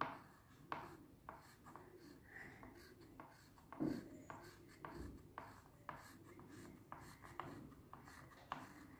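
Repeated scratchy strokes of a red colouring pen on paper as a vertical line is coloured in, one or two strokes a second, with a soft bump about four seconds in.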